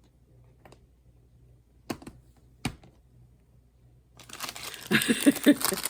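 Two small clicks, then from about four seconds in a dense crinkling and rustling, like paper or plastic being handled.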